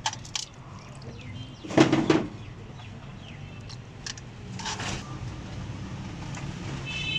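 Bird calls: a short loud call about two seconds in, another near five seconds, and a brief high chirp near the end.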